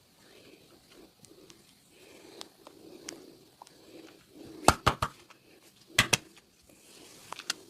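Hands working a massage: soft rubbing on skin and clothing, broken by a quick run of about four sharp cracks halfway through, two more a second later, and a couple of lighter clicks near the end.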